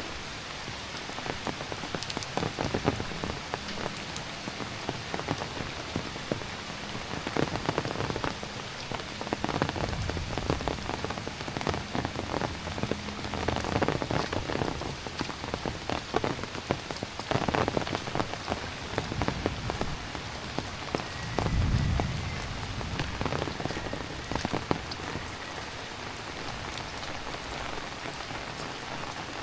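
Heavy rain falling steadily, with many individual drops tapping on nearby surfaces. About three-quarters of the way through there is a brief low rumble.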